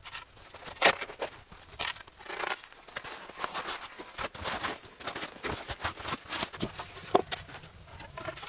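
Irregular rustling and crinkling with scattered sharp clicks and crackles, like things being handled.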